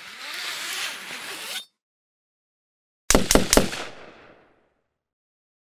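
Intro sound effects: a hissing swell with bending tones that cuts off suddenly, then, about three seconds in, three quick gunshot-like bangs a fraction of a second apart, ringing away over about a second.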